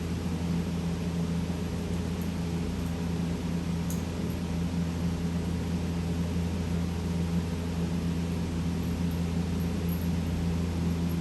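Garage heater running: a steady low hum with an even rush of fan noise over it.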